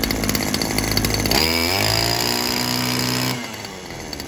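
Oleo-Mac Sparta 25 brushcutter's small two-stroke engine running loudly on the bench. Its sound changes about a second and a half in, then it drops off near the end and winds down to a stop. It is smoking from an oil-rich fuel mix.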